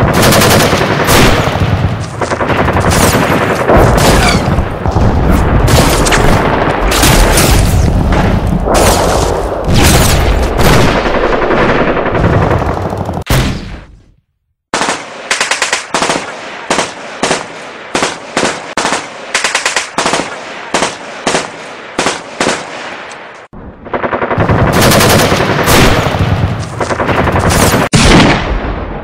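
Gunfire sound effects: loud, dense machine-gun fire, cut off abruptly about fourteen seconds in, followed by separate single shots about two a second, then heavy rapid fire again for the last five seconds.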